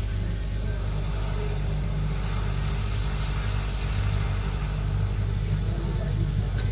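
Hot-air rework station blowing steadily: a constant low hum with a hiss over it, as the air heats an IC to lift it off a phone board.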